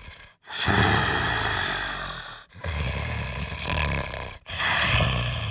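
A man imitating heavy snoring with his voice: three long, rasping snore breaths of about two seconds each, with a low rattle, like a cross between Darth Vader and a dog with a bone.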